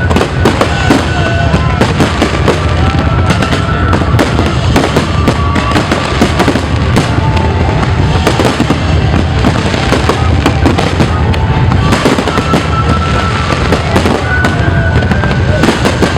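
Fireworks display going off continuously, a dense barrage of overlapping bangs and crackles with a constant low rumble, with music playing alongside.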